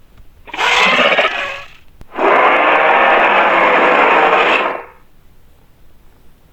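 Two T-rex roars, harsh and noisy: a short one about half a second in, then a longer one lasting about two and a half seconds.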